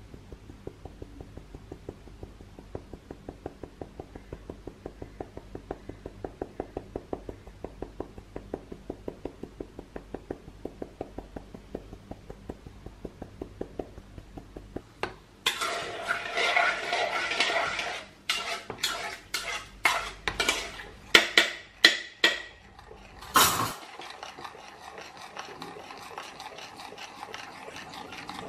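Flour being sprinkled into a ceramic bowl, with steady light tapping at about three to four taps a second. About halfway through, a metal spoon starts stirring the flour into the batter, scraping and clinking loudly against the china bowl, then stirring more quietly near the end.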